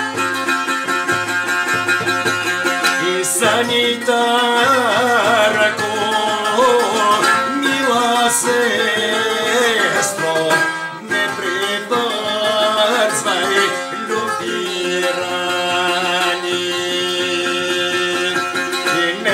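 A man singing a folk song while strumming and plucking a long-necked fretted lute. The lute plays alone at first, and the voice comes in about three and a half seconds in, with a brief break near the middle.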